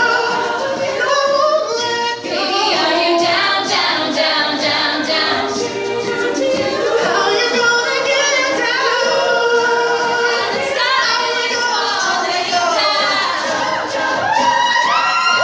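A cappella vocal group singing in several parts, with no instruments. Near the end a single voice slides up and holds a long high note.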